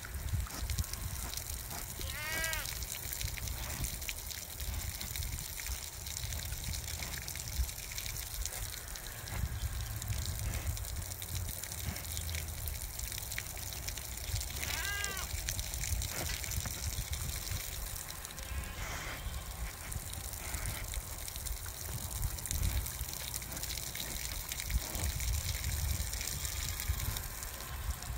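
Two short high squeals from piglets, about two seconds in and again halfway through, over a steady low rumble of wind on the microphone.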